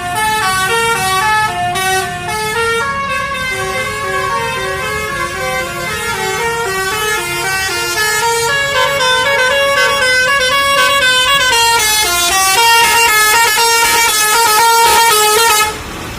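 Telolet Basuri musical bus horns playing quick melodies of short stepping notes, several horns overlapping at once. The tune grows denser and louder in the second half and cuts off suddenly near the end.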